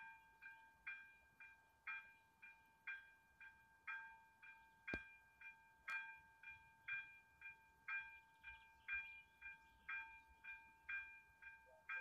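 Faint level-crossing warning bell ringing in an even rhythm of about two strikes a second, the crossing closed for an approaching train. A single sharp click about five seconds in.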